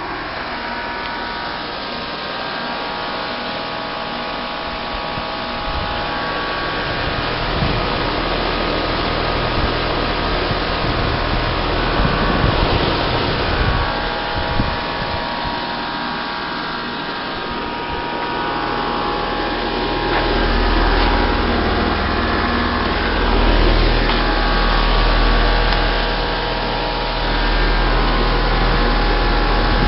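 Bryant Evolution 16 SEER two-stage heat pump outdoor unit running: a steady hum of fan and compressor with several steady tones over a rushing noise. Low rumbling swells come and go in the second half.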